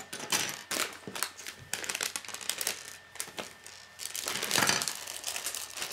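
Plastic Lego Technic pieces clicking and clattering as they are handled and set down on a wooden table, with a plastic parts bag crinkling about four and a half seconds in.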